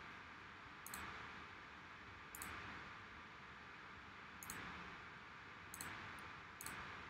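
Faint clicks of a computer mouse, five of them at irregular intervals a second or two apart, each followed by a brief soft hiss.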